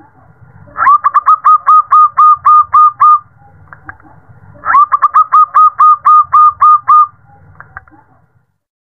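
Zebra dove (perkutut) calling: two runs of about ten short, quick notes each, roughly four a second, with a pause of just over a second between the runs. The uploader offers it as a female calling a male.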